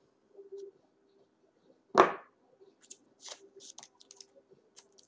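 Handling of a cardboard phone box: one sharp thump about two seconds in, then a run of light clicks and scrapes as the phone is lifted out of its cardboard tray.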